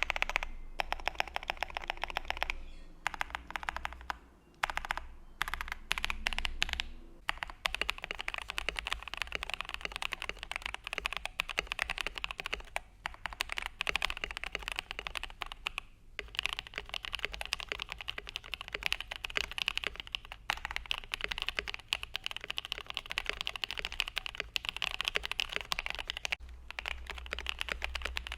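Fast typing on a mechanical keyboard fitted with enthusiast keycaps (GMK or a GMK clone set), giving a steady run of key clacks. It starts as short separate bursts, then becomes continuous typing with one brief pause partway through.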